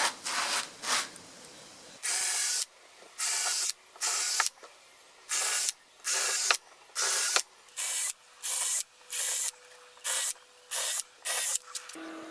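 Cordless drill boring into wooden boards in a quick series of short bursts, about a dozen, starting about two seconds in.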